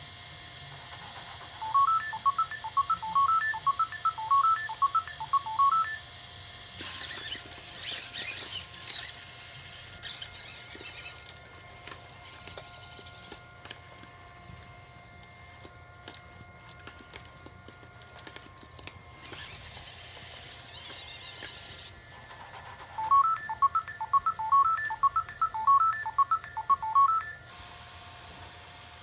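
Sony Aibo ERS-111 robot dog playing a quick electronic beeping melody of a dozen or so notes, twice: about two seconds in and again near the end. In between, a brief mechanical whir from its leg joints as it moves.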